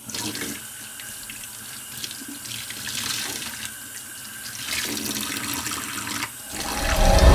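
Bathroom sink tap running, water splashing over hands being washed under the stream. Near the end a louder, low swell builds up and cuts off abruptly.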